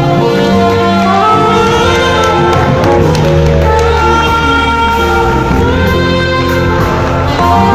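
Live church band music in a large hall: keyboard and bass under a saxophone playing long held melody notes.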